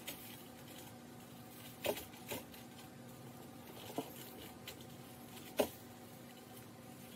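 Dry BBQ rub shaken from a spice shaker onto a block of cream cheese resting on foil over a wire rack: a handful of soft taps and light patters a second or two apart, over a faint steady hum.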